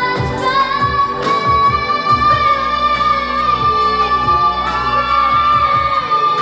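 A female vocalist holds one long high note over a pop band with drums, near the end of a song. The note slides up about half a second in and holds steady to the end.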